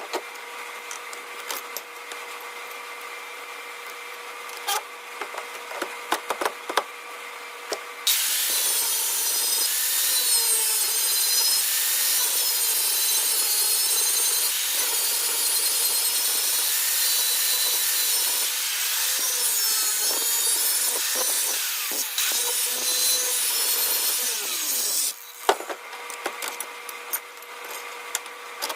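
A power tool grinding, running continuously under load for about seventeen seconds from about a third of the way in. It is preceded and followed by a quieter steady hum with scattered clicks and taps.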